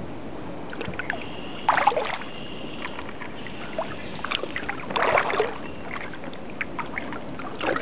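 Kayak paddle blades dipping and splashing in the water, about three strokes spaced roughly three seconds apart.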